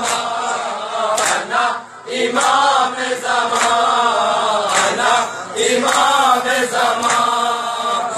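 Men chanting a nauha, a Shia lament, with a lead voice on a microphone and a group chanting with him. Under the voices are steady chest-beating (matam) slaps a little more than once a second.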